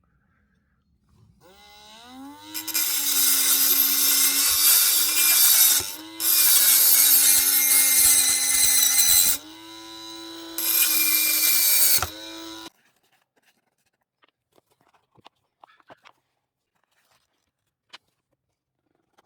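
A small high-speed electric motor spins up with a rising whine, then a tool on it grinds or cuts under load in three long loud stretches, its pitch sagging a little while loaded. It runs free and quieter in a short gap before the last stretch, then shuts off about two-thirds of the way through.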